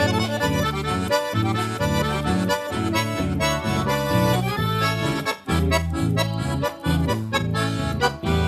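Live accordion playing a lively instrumental introduction over a bouncing bass line and guitar on a steady beat, with no singing yet.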